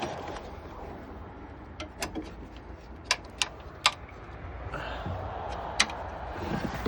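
Scattered sharp clicks and taps of small plastic and metal parts being handled, over a low steady background hum.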